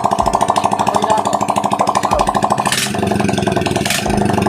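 Freshly overhauled Honda XRM125's single-cylinder four-stroke engine running with a fast, even firing beat. Two short sharp clacks come about a second apart, near three and four seconds in.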